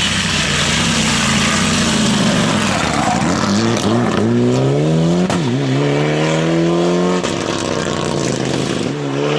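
Mitsubishi rally car engine accelerating hard, its pitch climbing, with a quick upshift about five seconds in. It climbs again until the driver lifts off sharply about two seconds later, then it picks up again near the end.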